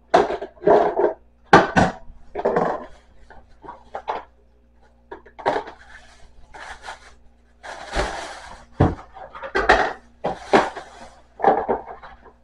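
Plastic food-storage containers and lids clattering and knocking together as they are handled and sorted on a countertop, in irregular bursts, with a longer rustle about eight seconds in.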